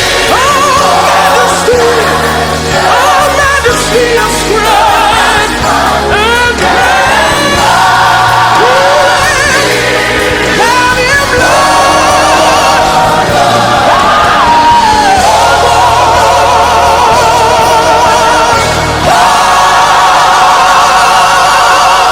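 Intro music: a gospel-style song with lead vocals and choir over a steady bass line.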